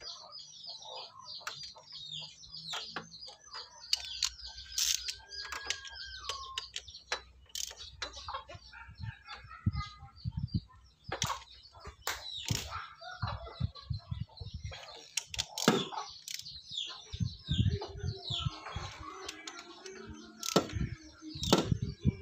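Birds chirping steadily throughout, with scattered sharp clicks and knocks of hand-tool work on the engine, coming thicker from about nine seconds in.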